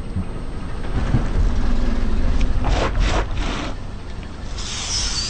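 Car tyre rolling onto a whole pumpkin and crushing it, over the low rumble of the car's engine. A cluster of sharp cracks and crunches as the rind splits comes about three seconds in, followed by a brief hiss near the end.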